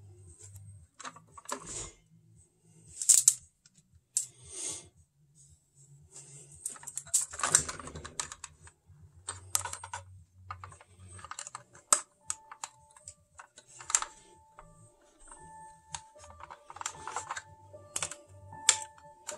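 Irregular small clicks, taps and rustles from hands handling a die-cast metal model Chevy police truck, its opening doors and plastic parts clicking as it is turned over.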